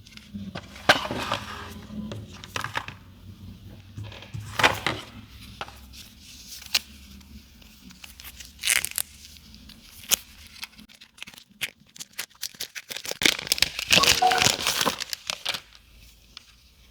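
Smartphone retail packaging being handled and opened: plastic wrap tearing and crinkling, with scattered sharp clicks and taps. The longest, loudest rustling comes near the end.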